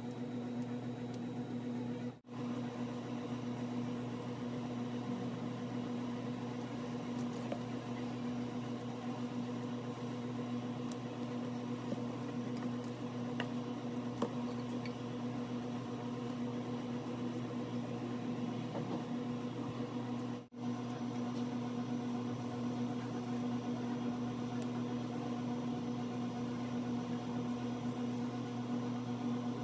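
Steady electric motor hum of running workshop machinery or a fan, broken twice by brief gaps, with a light tap about halfway through.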